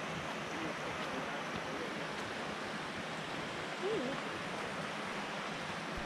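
Steady rushing of creek water tumbling over granite, with a brief faint voice about four seconds in.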